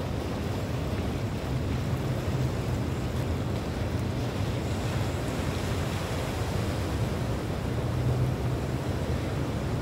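Surf washing on the beach with wind blowing on the microphone: a steady noise, heaviest at the low end, with no distinct events.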